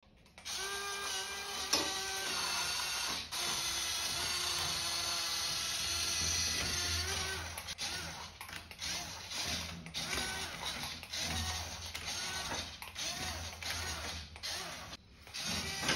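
RC toy tractor's small electric drive motor and plastic gearbox whirring in spurts as it is driven, stopping and starting several times with slight changes in pitch.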